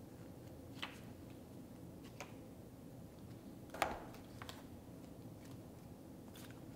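Faint handling sounds of printed cards and a paper booklet being picked up and set down in a cardboard knife box: a few light taps and rustles, the sharpest a little before four seconds in.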